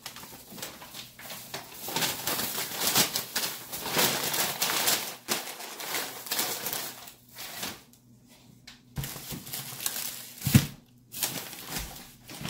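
Plastic grocery bags rustling and crinkling close to the microphone as items are pulled out of them, busiest over the first seven seconds, then sparser handling with one sharp knock about ten and a half seconds in.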